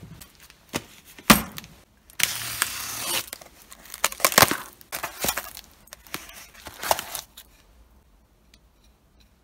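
A cardboard parcel being opened by hand: a knock about a second in, then packing tape being slit and torn along a long box, with cardboard rustling and small clicks, going quiet near the end.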